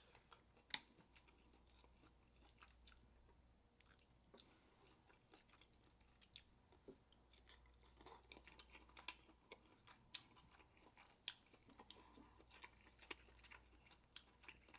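Faint eating sounds of snow crab: sparse short clicks of chewing and of crab meat being picked from the shell, coming more often in the second half.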